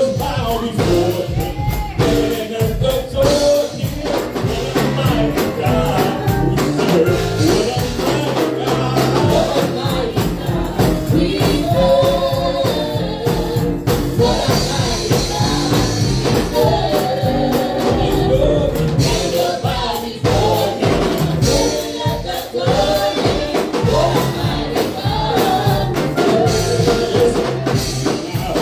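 Live gospel praise music from a church band, with singing over a steady beat of percussion.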